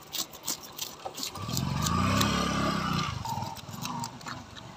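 Knife blade scraping scales off a tilapia in quick repeated strokes, each a short rasp. About a second in, a motor vehicle's engine passes by, rising and then falling in pitch, the loudest sound for about two seconds before it fades.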